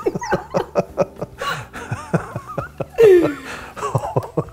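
Laughter: quick bursts of chuckling, with a louder laugh that falls in pitch about three seconds in.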